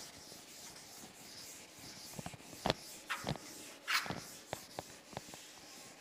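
A duster rubbing chalk off a blackboard in repeated wiping strokes, with several sharp knocks against the board.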